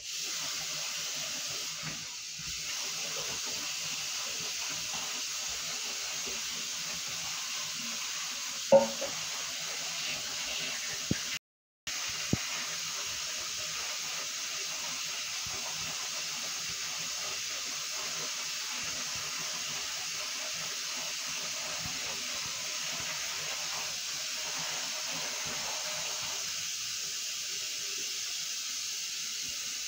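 Bathroom washbasin tap running steadily into a small bin being rinsed in the basin, with a single sharp knock about nine seconds in. The sound cuts out for a moment shortly after.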